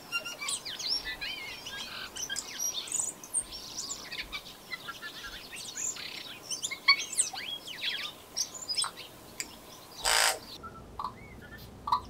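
Tui singing: a rapid, varied run of whistles, chirps and sliding notes, with a short, harsh noisy burst about ten seconds in.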